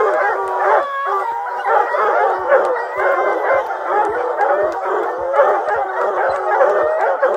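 A pack of bear hounds bawling and barking treed at a bear up a pine, many voices overlapping with no let-up.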